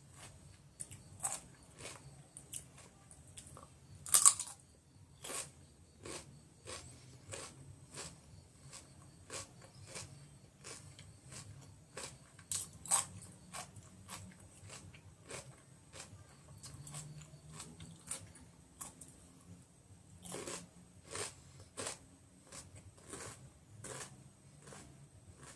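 Raw cucumber being bitten and chewed: a run of crisp, irregular crunches, about one or two a second, the loudest about four seconds in.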